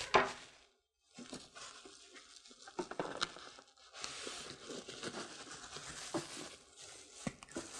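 Plastic bubble wrap crinkling and rustling as it is handled and pulled around a boxed resin 3D printer, with scattered sharp crackles.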